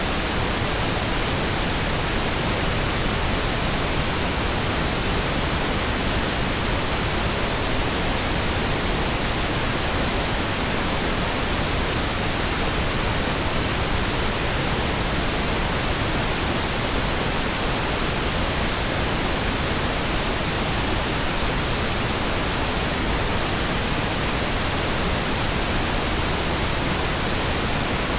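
Steady, continuous pink noise: an even hiss across all pitches with no changes or interruptions.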